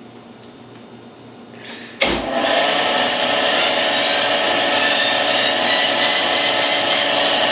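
Band saw switched on about two seconds in, its motor and blade coming up to speed and then running with a loud, steady whine, like a small jet taking off.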